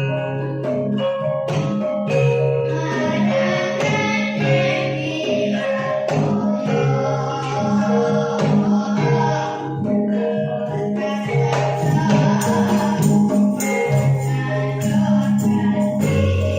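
Traditional Javanese music: a gamelan-style ensemble of mallet metallophones and percussion plays a steady, layered melody, with singing over it.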